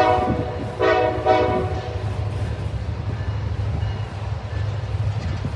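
Locomotive horn sounding two blasts, the first ending about half a second in and the second lasting about a second, over the steady rumble of a freight train rolling past.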